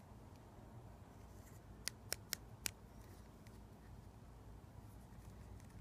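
Quiet room with four quick, sharp little clicks about two seconds in, from a plastic syringe being handled over glass medication vials while drawing up reconstituted fertility medication.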